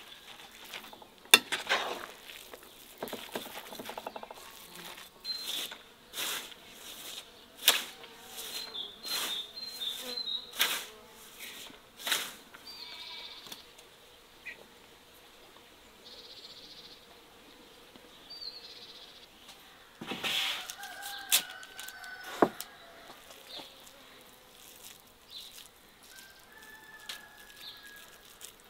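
Irregular clicking and rustling of hands working a moist bulgur and minced-meat köfte mixture in an enamel bowl, thickest in the first dozen seconds, with a few more near the middle. Birds chirp faintly in the later part.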